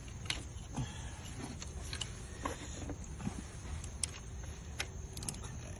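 Ratchet and socket working the 12 mm alternator bolt loose in a tight engine bay: scattered short clicks and light metal taps, spaced about a second apart, over a low steady rumble.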